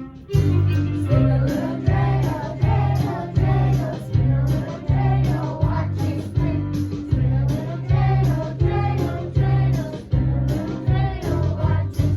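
Children singing a holiday song over an instrumental accompaniment with a steady beat and a pulsing bass line.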